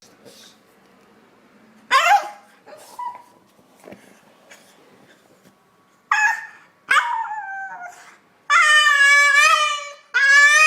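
A dog howling and whining: a short rising yelp about two seconds in, two falling whines around six and seven seconds, then a long, wavering howl near the end.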